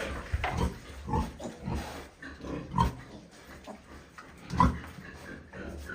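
Pigs grunting: a string of short, separate grunts, the loudest about three seconds in and again at four and a half seconds.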